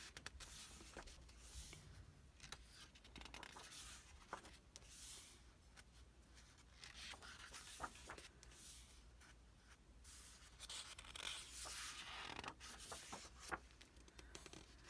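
Faint rustling and brushing of paper as the thick pages of a large art book are turned and smoothed flat by hand, with a few louder swishes where a page flips over.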